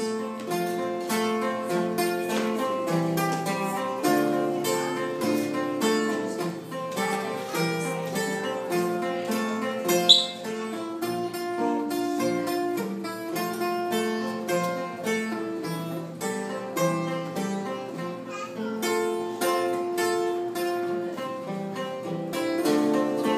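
Acoustic guitar played alone in an instrumental passage, with steady strummed and picked chords and no singing. A single brief high-pitched sound stands out about halfway through.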